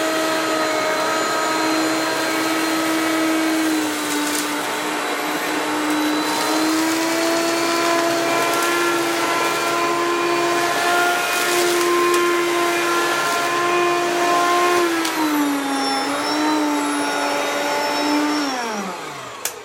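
Hoover PowerMax upright vacuum cleaner running steadily during a dirt pick-up test, its motor pitch wavering slightly as it works. Near the end the motor winds down, with a click just before it stops.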